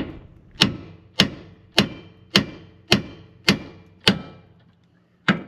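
Hammer blows on a rusted, seized part of a van's running gear: a steady run of about eight hard, ringing metal strikes, a little under two a second, then a short pause and a quicker flurry near the end. Each blow is a try at knocking the seized component free.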